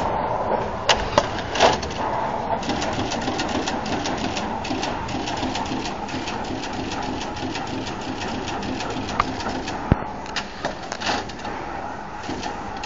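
Automatic jumper wire (axial) insertion machine running, a fast, steady clatter of mechanical clicks as its head drives wire jumpers into a circuit board, with a few sharper clicks standing out.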